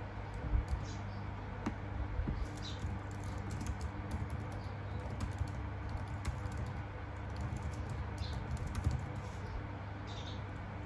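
Typing on a laptop keyboard: a quick, irregular run of key clicks over a steady low hum.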